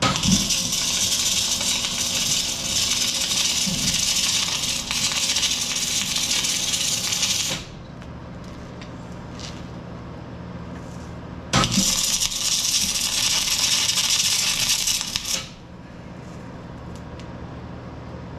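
Two long bursts of hissing spray from a hand-held trigger gun on a hose: one of about seven and a half seconds, then after a pause a second of about four seconds, each starting abruptly.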